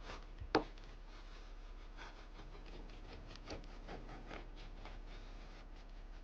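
Faint kitchen sounds of scraping and rubbing on a wooden surface, with one sharp knock about half a second in.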